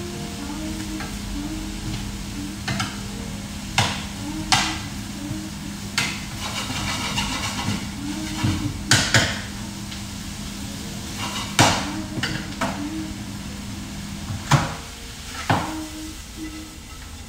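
Shrimp and wild leeks sizzling in a frying pan while a spatula stirs them, with a sharp knock of the spatula against the pan every second or two. A steady low hum runs underneath.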